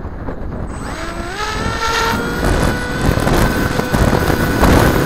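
Bixler 2 foam RC plane's brushless electric motor and propeller throttling up for takeoff: a whine that rises in pitch about a second in, then holds steady. Wind noise on the onboard camera sits under it as the plane climbs away.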